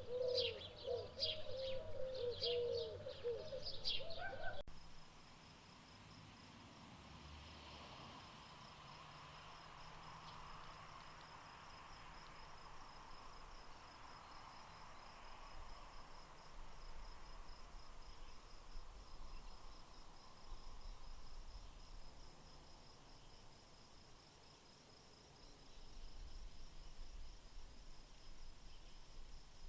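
Birds calling, with rapid repeated high chirps over a lower wavering call. About four and a half seconds in, the sound cuts to a steady, finely pulsing high insect trill over faint background.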